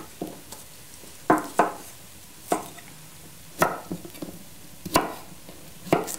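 Kitchen knife cutting through raw carrots onto a wooden chopping board: a crisp knock about once a second, some seven in all.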